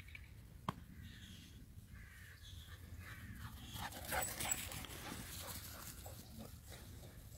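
Dogs running and playing on grass, with faint dog whines and yelps. There is a single sharp click just under a second in, and a louder rush of noise about four seconds in as a dog dashes close by.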